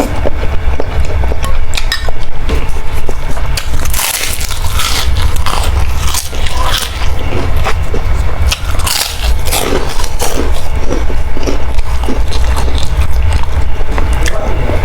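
Close eating sounds of a person biting and chewing a bowl of boiled instant noodles with kerupuk crackers: many short, irregular crunchy bites and mouth noises. A steady low rumble runs underneath.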